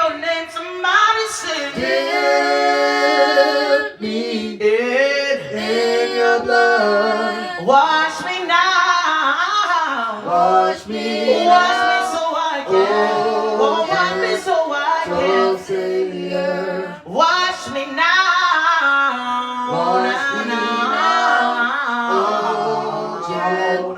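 A cappella gospel singing: voices carrying long, bending melodic lines without instruments.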